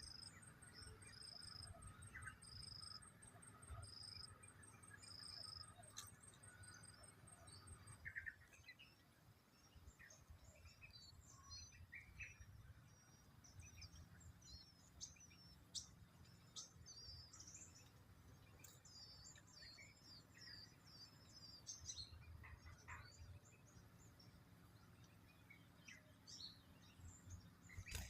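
Faint outdoor birdsong and insect ambience. For the first eight seconds or so an insect's fast high trill runs under a short high call repeating about once a second. Then the sound changes abruptly to scattered short, high bird chirps.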